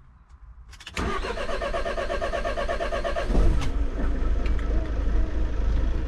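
Van engine cranked by its starter motor while being jump-started from a portable jump starter on a dead battery. It starts cranking rhythmically about a second in, catches after about two seconds of cranking, and settles into a steady idle.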